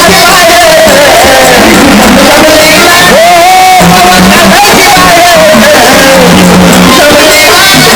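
Gondhal devotional folk music played very loud through a sound system: a wavering sung melody over a recurring drum beat.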